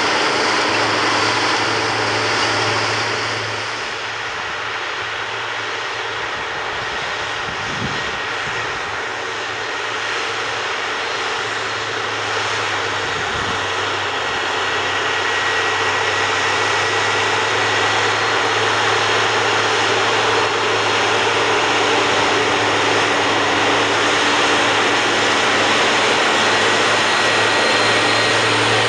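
Claas Atles 936 tractor's diesel engine running steadily under load while pulling a plough, with a constant low hum and a thin high whine. The engine sound eases off slightly about four seconds in and builds back up from around twelve seconds.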